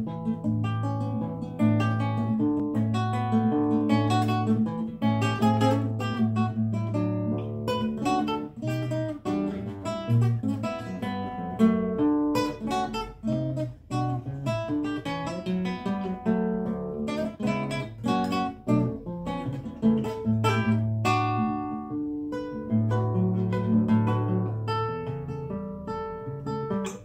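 Solo classical guitar played fingerstyle in the rhythm of an Argentine gato: a plucked melody and chords over a recurring low bass note.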